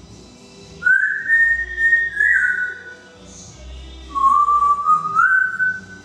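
African grey parrot whistling two long, pure-toned phrases of about two seconds each. The first rises and then falls; the second steps upward in pitch.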